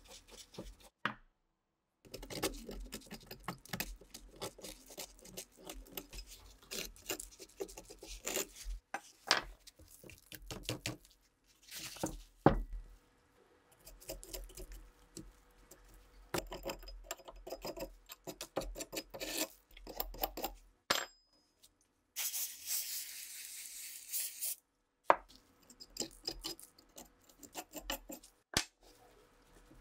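Hand tools scraping and picking at rust around seized screw heads on an old rusted rifle: rapid runs of short metal scrapes and clicks, broken by brief pauses. A steady hiss lasts about two seconds roughly three-quarters of the way through.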